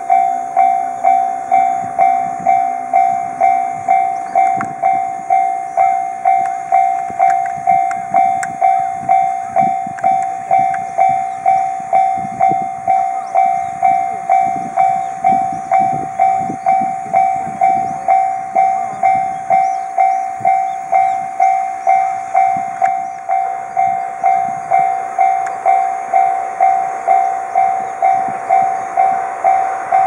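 Japanese railroad crossing warning bell ringing steadily, a single-pitched ding repeated about twice a second, warning that a train is coming. A low hum sounds under it for the first four seconds or so while the barrier arms come down, and a broad rushing noise builds near the end.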